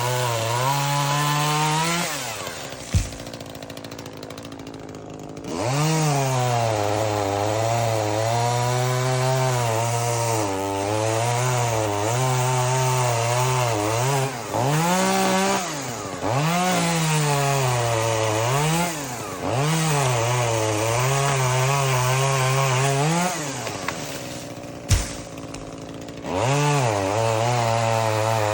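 Chainsaw cutting wood, its engine note dipping as the chain bites and rising again as the load eases, over and over. Twice it drops back to a quieter run for a few seconds, each time with a single sharp knock.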